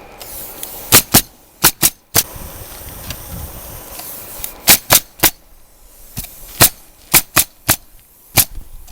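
Nails being driven into asphalt roof shingles: about a dozen sharp shots in uneven clusters with short pauses between.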